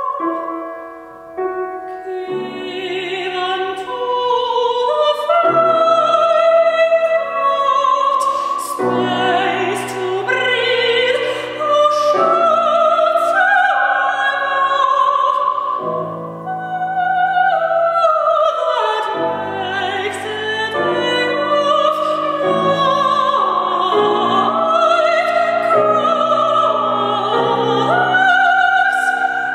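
A woman singing an art song in classical operatic style, her voice wavering with vibrato, accompanied on a grand piano. The piano's lower notes come in about two seconds in.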